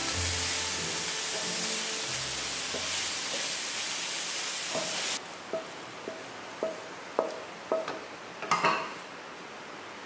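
Minced pork and egg tofu sizzling in a hot wok as a spatula stirs them. About five seconds in the sizzle cuts off, and a series of sharp clicks and knocks of utensils against the cookware follows, the loudest near the end.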